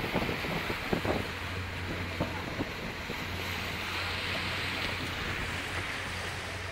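Motorboat under way: a steady low engine hum beneath the rush of the churned wake water, with wind buffeting the microphone, most sharply in the first couple of seconds.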